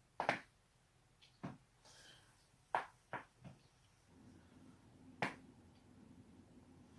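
Neck joints cracking as the neck is twisted: five sharp pops spread over several seconds, two close together near the middle, with a few fainter clicks between them.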